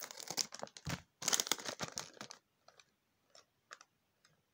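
Plastic Lego Super Mario blind bag crinkling as it is handled and torn open, with a dull thump about a second in. After about two and a half seconds the crinkling stops and only a few faint clicks follow.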